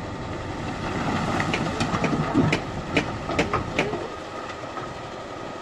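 Dump truck's engine running as the tipping bed dumps its load of soil and rocks out the back. Between about one and four seconds in, a quick series of sharp knocks and clatters rings out as rocks and clods hit the ground, and then it settles back to the engine alone.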